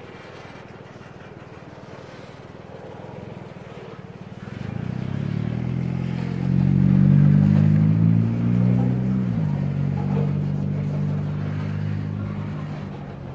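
Freight train of covered hopper cars rolling through a grade crossing with a steady rumble. About four seconds in, an engine comes up over it and is loudest for a few seconds. Its pitch drops suddenly about nine seconds in, and it fades near the end.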